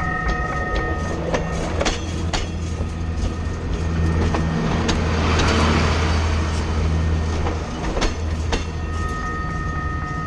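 Bicycle ride noise picked up by a bike-mounted action camera: the bike rattling and clicking over bumps in the pavement over a steady low rumble of tyres and wind, with a swell of noise around the middle.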